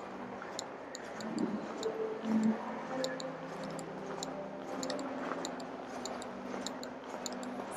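Quiet shopping-mall interior ambience: a steady hum with faint held tones, and a light click repeating roughly twice a second.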